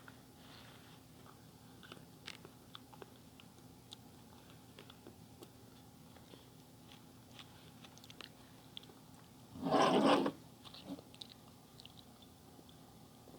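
Close-up eating sounds: soft chewing and mouth clicks, with one loud noisy burst lasting under a second about ten seconds in.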